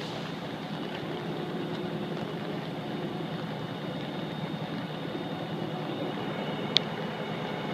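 Fire engine running steadily with a continuous low hum, and a single sharp click near the end.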